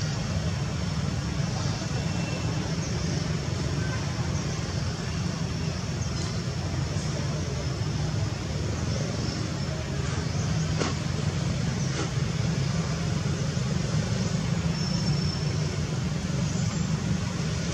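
Steady low background rumble at an even level, with faint high chirps and two faint clicks about eleven and twelve seconds in.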